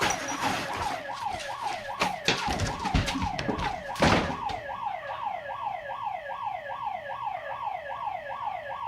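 Yelp-type siren wailing, a rising-and-falling sweep repeating about twice a second, with clattering knocks over it in the first half and one loud bang about four seconds in.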